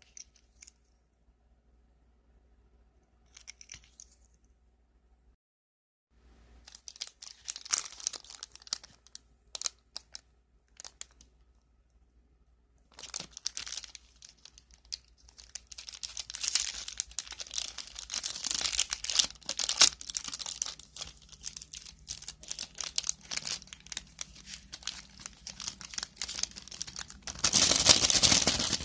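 Plastic keychain packaging crinkling and being torn open by hand. It comes in scattered bursts at first, goes on almost without a break through the second half, and is loudest near the end.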